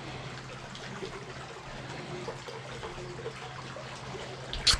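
Faint trickling water in a narrow sandstone gorge, over a low steady hum. A short sharp knock comes near the end.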